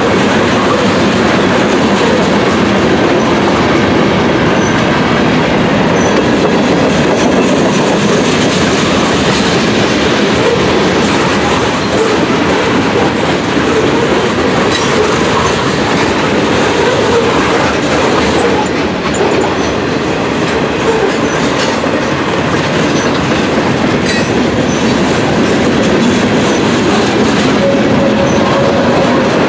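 Freight cars (tank cars and covered hoppers) rolling past at close range: steel wheels on the rails making a loud, steady rumble and clatter.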